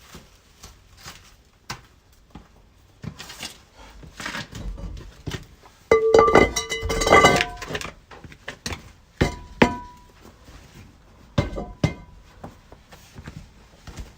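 Metal tools and parts clanking and clinking, with a loud burst of ringing clatter about six seconds in and a few single ringing knocks after it.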